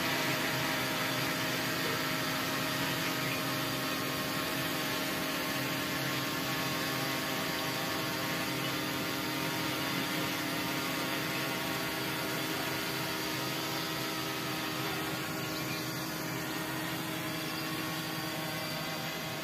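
Multirotor drone with Readytosky 930 kV brushless motors and 1045 propellers hovering: a steady hum of motors and propellers made of several held tones.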